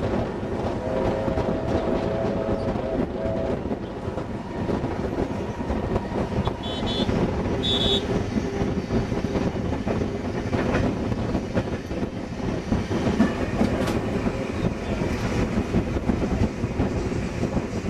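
Passenger carriages of a train hauled by steam locomotive 3642 running along, heard from an open carriage window: a steady rumble with wheels clicking over the rail joints. A held two-note whistle-like tone sounds for a couple of seconds about a second in, and a brief high squeak comes near the middle.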